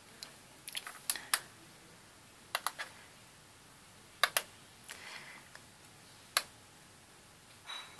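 Computer keyboard keys clicking in sparse little groups of two or three strokes, with pauses between, rather than steady typing.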